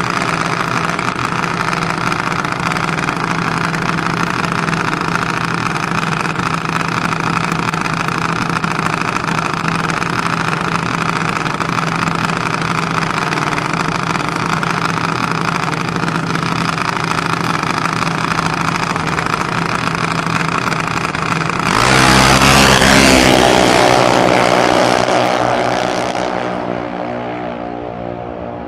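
Junior dragster engine idling steadily, then after about twenty seconds it opens up to full throttle with a sudden loud rise and climbing pitch as it launches, fading away near the end as the car runs down the track.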